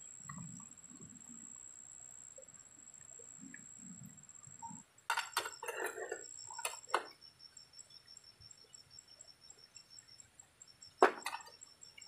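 Faint handling noises: clusters of clicks and rustles, then one sharp knock about eleven seconds in, over a thin, steady high-pitched whine.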